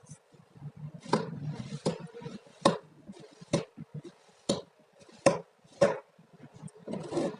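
Knife cutting through kinetic sand, the blade knocking on the cutting surface seven times in an even rhythm, about one stroke a second. Near the end there is a brief scrape.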